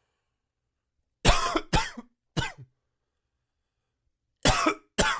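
A man's hacking cough: a bout of three quick coughs, then a pause, then two more near the end. The cough is from allergies left untreated.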